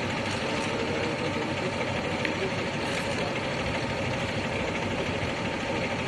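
A vehicle engine idling steadily under a constant rushing noise.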